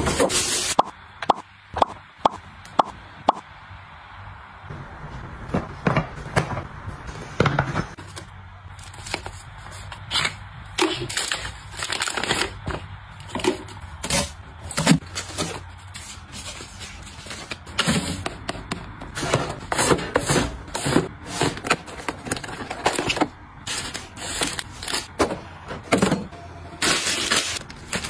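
Close-up handling of packaging: clear plastic wrap and plastic bags crinkling, cardboard flaps rustling, and rubbish dropped into a waste bin. A quick run of sharp taps comes about a second in, and a loud crinkling burst near the end.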